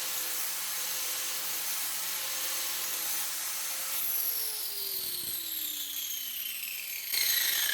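Angle grinder fitted with a Kutzall carbide shaping dish, grinding silver birch with a steady whine and abrasive noise. From about halfway its pitch falls steadily as the motor winds down, and near the end a sudden louder burst of grinding noise comes in.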